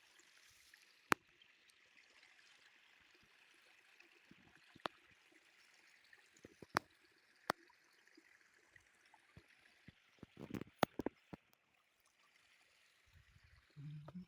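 Faint running water, like a stream or trickle. A few sharp clicks sound over it, with a short cluster of knocks about ten and a half seconds in.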